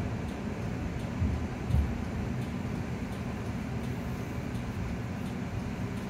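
Edinburgh tram (CAF Urbos 3) heard from inside the passenger car: a steady low rumble, with two short thumps a little over a second in.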